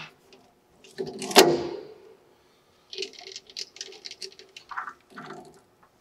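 Hands fitting V-belts onto the lathe motor's pulley: one sharp knock that rings briefly about a second and a half in, then a run of light clicks and rattles.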